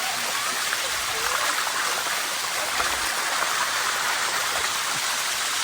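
A waterfall's water rushing steadily over rock, heard from right beside it.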